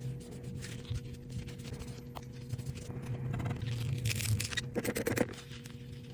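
Small cleaning tool scraping and scratching at the dirt clogging an iPhone 13, in irregular short strokes that come thicker and louder about four to five seconds in, over a steady low hum.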